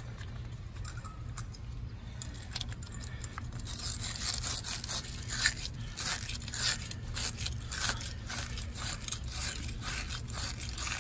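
Brush scrubbing the inside of a car battery cable's terminal clamp, rapid scraping strokes that start about three and a half seconds in after some lighter handling. The clamp is being cleaned of corrosion left by battery acid.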